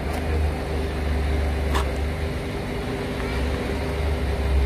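Heavy vehicle engine running steadily with a low rumble, with one sharp click about two seconds in.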